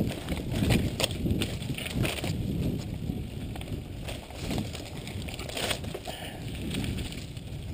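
Mountain bike rattling over a rough dirt singletrack, heard through a handlebar-mounted camera: a steady low rumble from the tyres and frame, with many sharp knocks and clicks as it jolts over bumps.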